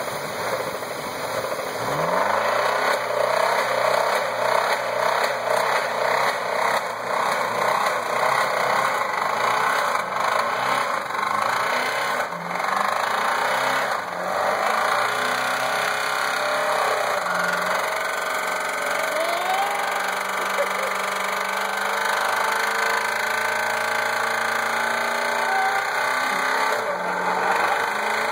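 Chevrolet Cavalier engine with a rod knock, revved up and down repeatedly, then running at a steadier speed in the second half.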